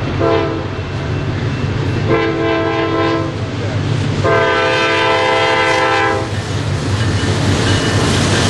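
Norfolk Southern diesel freight locomotive sounding its air horn three times: a short blast, a longer one, then a long one of about two seconds. Under the horn runs the steady low rumble of the approaching diesel engines.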